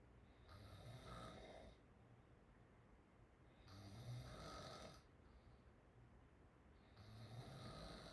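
A young woman snoring faintly with her mouth open: three snores about three seconds apart, each a low rasp with a breathy hiss.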